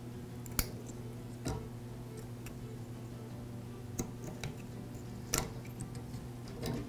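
Faint, scattered clicks of needle-nose pliers and metal spade connectors as the motor wires are worked off an angle grinder switch's terminals, about five in all, over a steady low hum.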